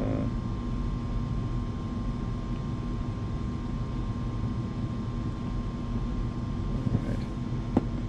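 Steady drone of a basement furnace running, a low hum with a thin, even tone above it. One short click near the end.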